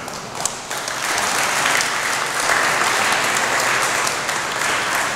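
Audience applauding, swelling up about a second in and then continuing steadily.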